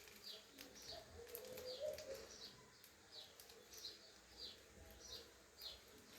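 A bird chirping faintly: a series of short, falling chirps, about two a second.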